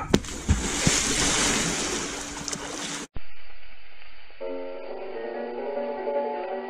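Pool water splashing and churning for about three seconds, as from someone jumping off the diving board into the pool, ending in a sudden cut. About a second later plucked guitar music begins.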